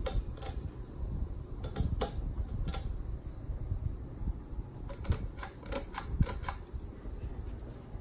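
Hampton Bay Tripoli ceiling fan running, with an uneven low rumble and scattered sharp clicks: a few near the start and a quick cluster between about five and six and a half seconds in.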